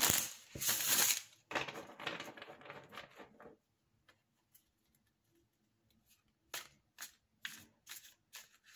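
Tarot deck being shuffled: a loud riffle of flicking cards bridged together in the first second, fading over the next two. After a pause, a run of short sharp card slaps as the deck is shuffled by hand.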